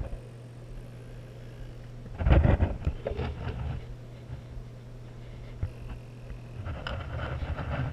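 Muffled water noise heard by a camera under water: a steady low hum, with a loud rush of churning water about two seconds in and a softer stretch of it near the end.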